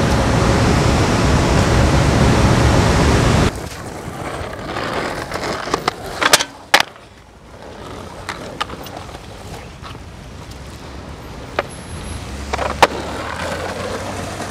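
Skateboard on the street: a loud, steady rush of wheels rolling on pavement that cuts off abruptly, then quieter street sound broken by sharp clacks of the board, a close pair about halfway through and a couple more near the end.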